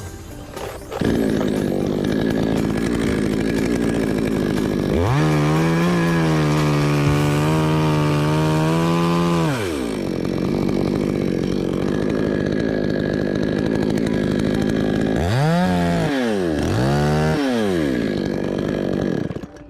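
Two-stroke chainsaw running: it comes in about a second in and runs at a lower speed, is held at full throttle for about four seconds, then drops back. Near the end it is revved twice in quick blips and then stops suddenly.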